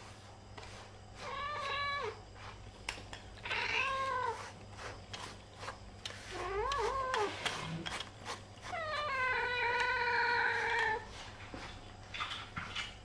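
Domestic cat meowing four times, the last call the longest, drawn out for about two seconds. Faint clicks in between.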